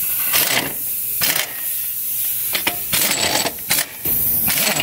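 Heavy-duty pneumatic impact wrench on a truck wheel's lug nuts, rattling in several short bursts over a steady high hiss.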